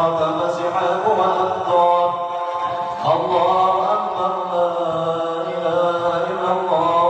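A man's voice chanting a prayer in long, held melodic phrases, starting a new phrase about three seconds in and again near the end.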